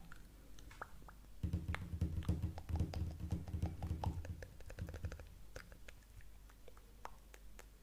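Rapid close-miked tapping on objects, densest and loudest from about a second and a half in until about five seconds, with scattered sharp clicks throughout.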